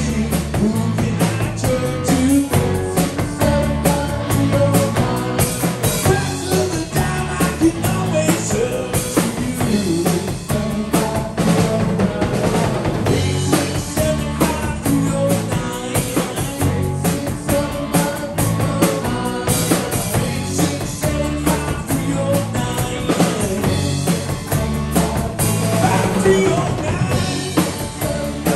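Live rock band playing through a PA: drum kit keeping a steady beat under electric guitars, bass guitar and keyboard.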